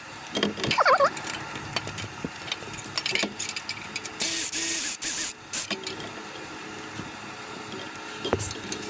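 Metal hand tools clinking and knocking in irregular clicks, with a rattling, scraping rustle lasting about a second from around four seconds in.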